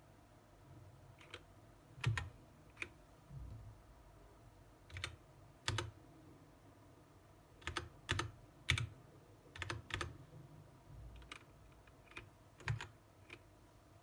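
Keys of a Gateron-switch mechanical keyboard being pressed one at a time, about a dozen separate clacks at an uneven pace with pauses between them.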